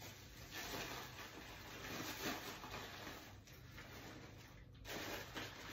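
Soft rustling of clothes and a bag being handled during packing, swelling a few times.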